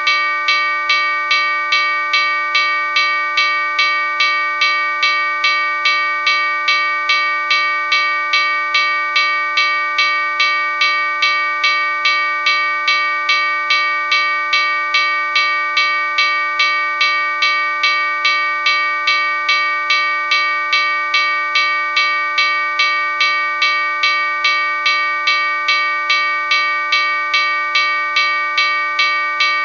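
Railroad crossing bell ringing continuously, struck over and over at an even pace, each strike landing on a ring that never dies away between strokes.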